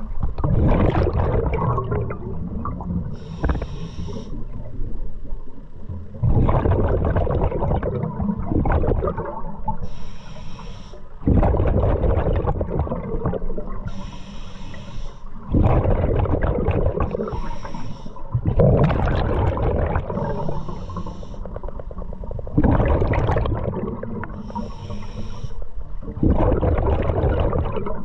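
A scuba diver breathing through a regulator: a short high hiss on each inhale, then a long low rush of exhaled bubbles, repeating about every four seconds.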